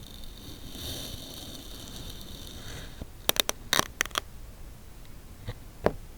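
Kinetic sand being cut and crunched: a soft scraping hiss for about three seconds, then a quick run of about six sharp crunching clicks, and two fainter taps near the end.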